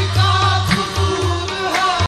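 Background music: an Indian song with a heavy, regular bass beat, sharp percussion strikes and a wavering melody line.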